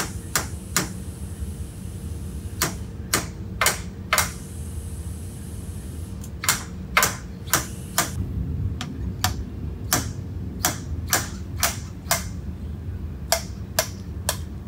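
A steel drive shaft knocking and clicking against the Mud Buddy lower unit housing and its bearings as it is pushed back through the greasy bore: a run of irregular sharp metallic knocks, some louder than others, over a steady low shop hum.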